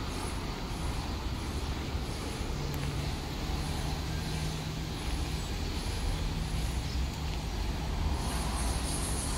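City street ambience: a steady low rumble of distant traffic, with a faint engine hum through the middle.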